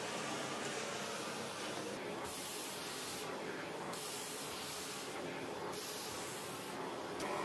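Cleaning spray hissing out in about three separate bursts of roughly a second each.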